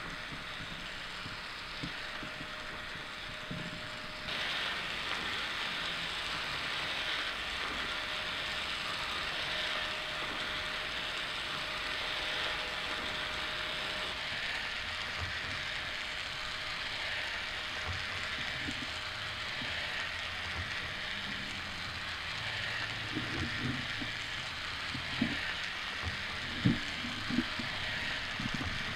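Crumpled blue plastic sheeting on a wiggling robot sculpture rustling and crinkling steadily, getting louder about four seconds in, over a faint steady hum. A few soft low thumps near the end.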